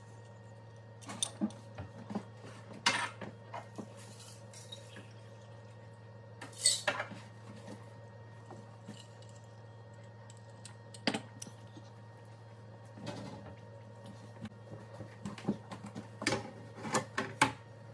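Scattered kitchen clinks and knocks of glass and metal over a steady low hum. A cluster of metal clatters near the end comes from a metal sheet pan being set down on the gas stovetop grates.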